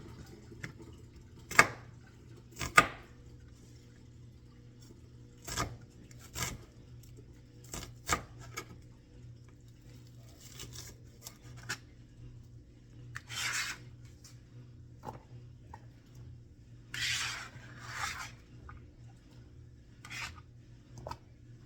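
Irregular knife knocks and scrapes on a cutting board while white onion is cut up and scraped off. A steady low hum runs underneath.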